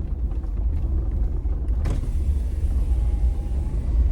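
Vehicle driving slowly along a rough dirt track: a steady low rumble of tyres and suspension, with a single sharp knock about two seconds in.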